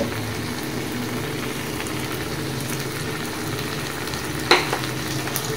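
Chicken pieces in spice paste sizzling steadily in hot oil in a wok while a yogurt mixture is poured over them. About four and a half seconds in there is one brief, louder clink or scrape.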